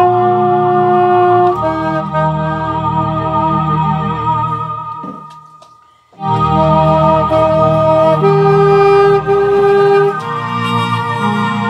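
Alto saxophone and organ playing a slow hymn in long held notes. The music fades away and stops briefly about five to six seconds in, then starts again.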